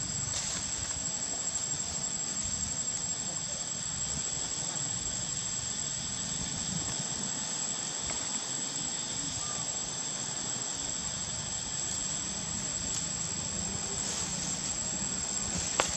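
Steady outdoor background noise with a thin, high, steady whine and a low hum running under it. There is one sharp click just before the end.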